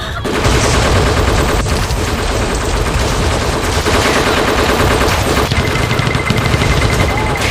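Automatic rifle fire sound effect dubbed over toy blasters: rapid, continuous gunfire that starts just after the beginning and keeps going throughout.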